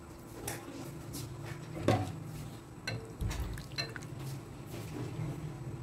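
A few light, separate clinks of a utensil against a dish or pot, over a faint steady low hum.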